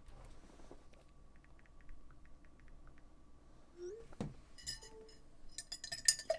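Faint small clicks, then a single knock, then a quick run of light clinking near the end.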